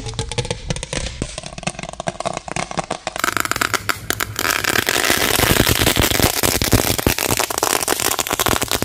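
Quail-egg firecracker (petasan telur puyuh) going off inside a stoppered plastic bottle: rapid crackling that grows much denser and louder from about three seconds in.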